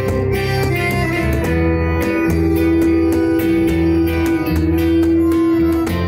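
Live instrumental music: an accordion holds a long note over a nylon-string acoustic guitar, with a cajón beating time.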